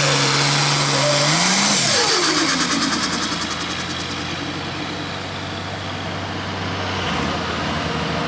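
Super Stock pulling tractor's turbocharged diesel engine at full power at the end of its pull, then throttled back about two seconds in, its pitch falling away steeply as it settles to a steady idle.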